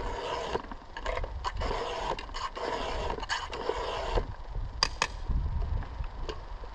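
Chainsaw chain being sharpened by hand: a file rasping across the cutters in repeated short strokes, about two a second. Two sharp clicks come near the five-second mark.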